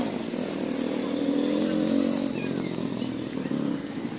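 A small engine running steadily, its pitch drifting a little up and back down.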